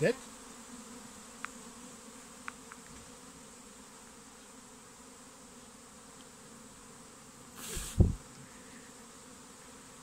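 Honeybee swarm humming steadily and faintly at a low pitch, with a few faint clicks early on. About eight seconds in, a sudden short rush of air with a thump cuts over the hum.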